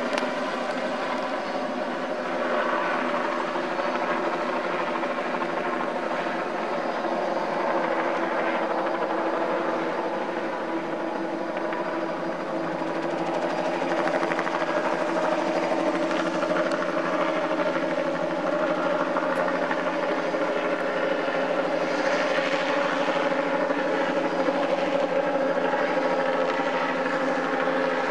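Helicopter flying low overhead: a steady, continuous drone of rotor and turbine, its pitch drifting slightly as it moves.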